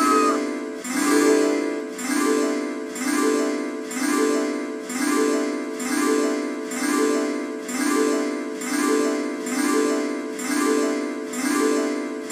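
Background music: a short bright figure repeated over and over, about once a second, each repeat starting sharply and fading away.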